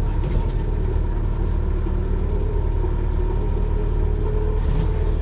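Inside an Alexander Dennis Enviro400H MMC hybrid double-decker bus under way: a steady low drivetrain rumble with a faint held whine over it.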